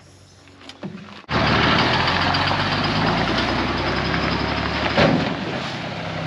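A few faint clicks, then a sudden cut about a second in to a flatbed pickup truck towing a fertilizer spreader buggy along a gravel drive. Its engine and tyres run steadily and slowly grow quieter as it pulls away.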